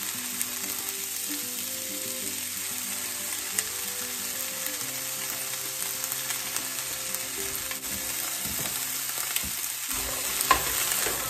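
Sliced onions and bell peppers sizzling steadily in a hot nonstick skillet. Near the end, a few sharp clicks as tongs start tossing the vegetables in the pan.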